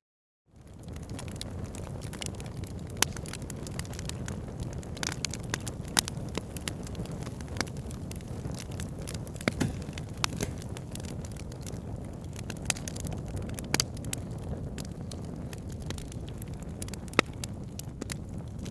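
Fire burning in a fireplace, coming in after a brief moment of silence: a steady low rush of flames with frequent sharp crackles and pops, a few of them louder.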